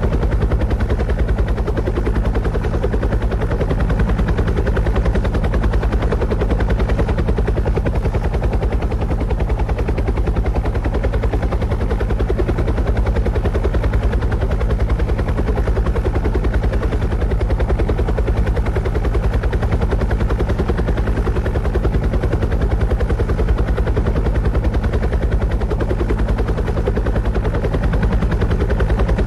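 Quadcopter drone's motors and propellers running steadily: an even, fast-fluttering hum with a low pitched tone, unchanging throughout.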